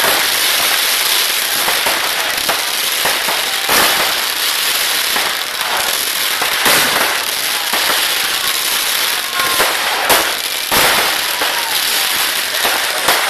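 Vedikettu fireworks going off without a break: dense, continuous crackling from sparking shells and fountains, broken by frequent sharp firecracker bangs, with a few louder reports standing out.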